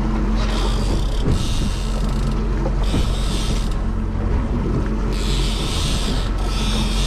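Boat engine running with a steady low hum, overlaid by a hiss that comes and goes in bursts of about a second, repeated every second or two.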